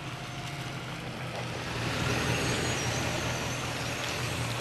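Pickup truck towing a loaded flatbed trailer, its engine running steadily with tyre and road noise, getting louder about two seconds in as it comes near.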